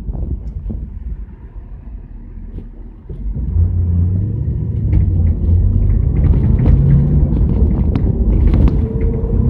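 1977 Chevrolet Camaro's engine heard from inside the cabin at the back seat: a low rumble that gets much louder about three seconds in as the car accelerates, with scattered light clicks and rattles.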